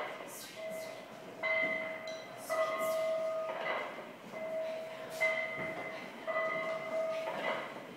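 A bell-like ringing tone sounds repeatedly, each note held for up to about a second, with swishing noises between the notes.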